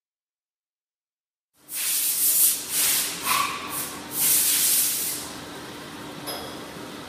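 TOPEAGLE TBH-580 eyelet buttonhole machine giving about five sharp hisses of air in quick succession, then running on with a steady hum and a faint click.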